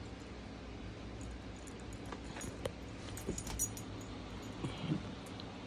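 Faint metallic jingling and scattered light clicks from a small dog moving about with a plush toy in its mouth, over a low steady hum.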